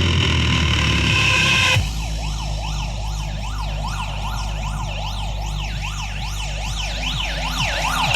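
Siren sound effect played through a DJ sound system under test: a fast up-and-down wail, about three sweeps a second, over a steady deep bass drone. It cuts in about two seconds in, after a louder stretch of distorted music.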